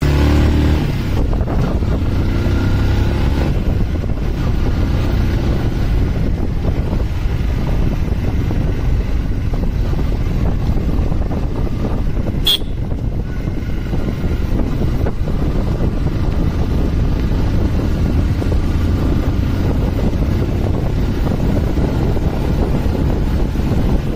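Motorcycle riding along at road speed: the engine running steadily under a low, wind-buffeted rush over the microphone. A single short sharp sound about halfway through.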